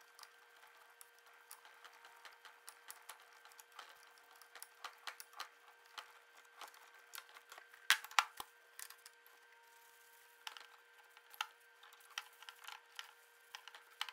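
Scattered light clicks and taps of metal parts being handled as an air cylinder is repositioned and clamped in a bench vise, with two sharper clacks about eight seconds in.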